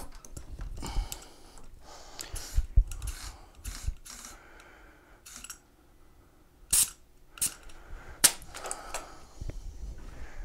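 Compressed-air chuck on an air hose, blowing in several short bursts as it is pressed onto the valve of a flat pneumatic mobility-scooter tyre to inflate it, with some clunks of handling. The loudest bursts come about two-thirds of the way in.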